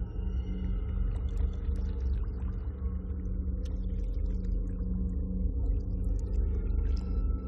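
Steady low rumble with a constant hum and scattered faint clicks and ticks.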